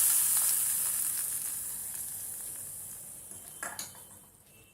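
Hot ghee tempering with popped mustard seeds poured into rasam, sizzling and dying away steadily over a few seconds. A couple of light knocks come near the end.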